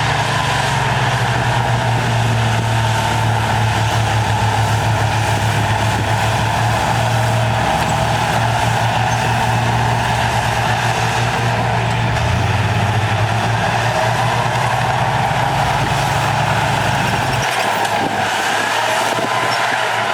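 Heavy diesel earthmoving machinery running under work: a steady low engine rumble with a high whine above it that wavers in pitch. The low rumble drops away about three seconds before the end.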